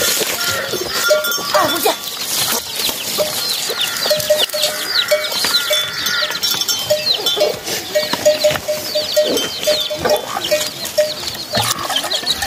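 A mother hen clucking in short, evenly repeated notes, several a second, while her chicks peep with many quick, high, falling cheeps.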